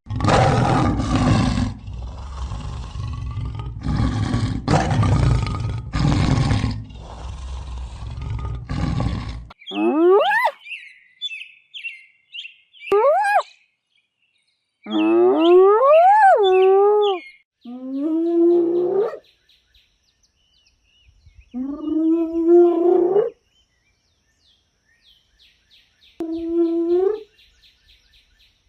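Animal calls: a harsh, noisy call repeated in pulses for about the first nine seconds, then a series of separate pitched calls that bend up and down, each a second or two long with pauses between.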